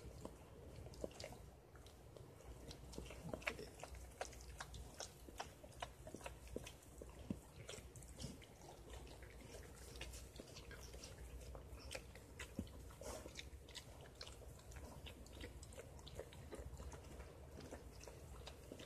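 Faint, irregular wet clicks of a mother dog licking and chewing at her newborn puppy and the afterbirth just after whelping.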